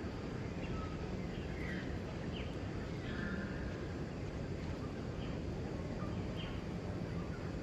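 Steady outdoor background noise with a handful of short, faint, high chirps scattered through it.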